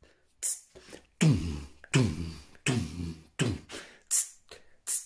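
Mouth beatboxing: short, hissing hi-hat 'ts' sounds made through closed teeth, one about half a second in and more near the end, with three longer, louder voiced hits in between whose pitch falls.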